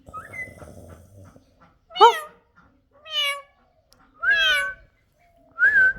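Indian ringneck parrot mimicking a cat's meow, four separate meow-like calls about a second apart, after a soft rustle at the start.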